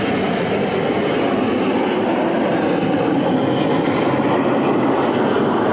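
BAE Hawk jet trainers flying past in a display, their Adour turbofan engines making a steady rushing jet noise.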